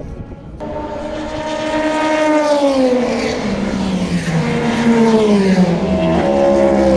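Race cars going past one after another, a Hypercar prototype and then a GT car. Each engine note falls in pitch as it goes by. The first pass starts about half a second in, and more passes follow near the end.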